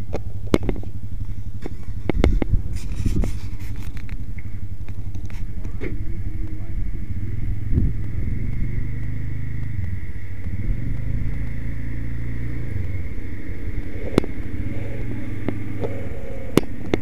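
A vehicle engine running steadily at low speed, with scattered knocks and rubbing from the body-worn camera.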